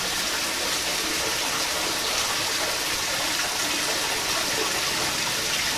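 Steady hiss of running or falling water, even and unbroken throughout.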